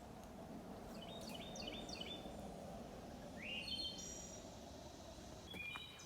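A songbird singing: a quick run of high notes about a second in, a rising note leading into another run of notes in the middle, and a few more near the end, over a faint low rustle.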